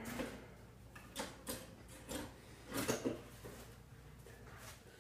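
A handful of short, irregular knocks and clicks of objects being handled, with no speech.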